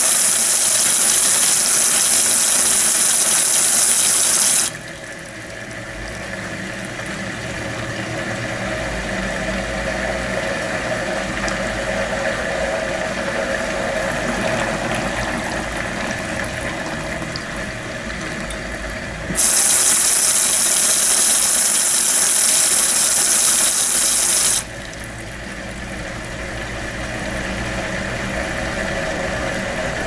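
Brastemp Eggo mini washing machine spraying water onto the load, twice, each spray a loud hiss about five seconds long: once right at the start and again about two-thirds of the way through. This is the spray rinse that washes soap residue out of the clothes before the tub fills for the rinse. Between the sprays the machine's motor runs with a steady hum and a low rumble.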